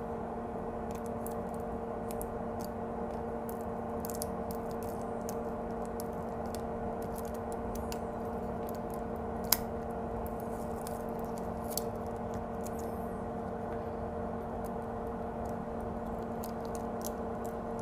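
Tape being peeled slowly off a circuit board, giving many faint crackles and ticks, with a sharp click about nine and a half seconds in. A steady low hum runs underneath.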